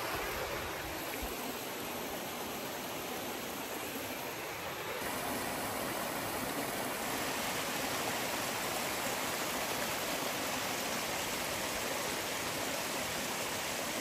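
A rocky mountain stream rushing over and between mossy boulders: a steady wash of running water that gets a little louder from about five seconds in.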